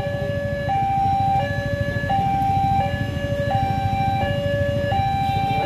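Railway level-crossing warning alarm sounding a two-tone electronic signal, switching between a higher and a lower note about three times every two seconds, over the low rumble of idling vehicle engines. The alarm warns that a train is approaching and the barriers are about to come down.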